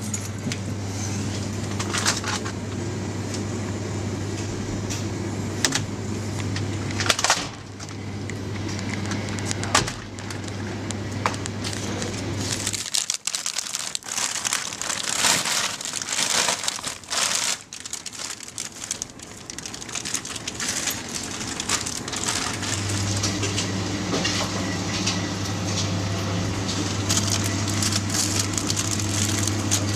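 Rustling and crinkling of plastic food packaging and handling noise, with scattered clicks and knocks, over a steady low hum that drops out for about ten seconds in the middle.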